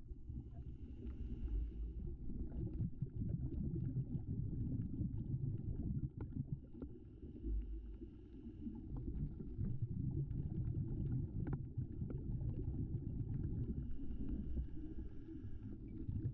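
Underwater camera audio: a low, steady rumble of water moving around a GoPro in its waterproof housing, with scattered faint clicks. A faint hiss swells and fades three times.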